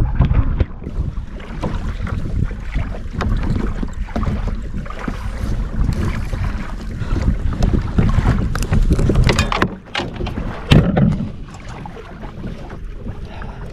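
Wind buffeting the microphone over water sounds around a fishing kayak on open water, with a few sharp knocks and clicks of handling between about eight and eleven seconds in.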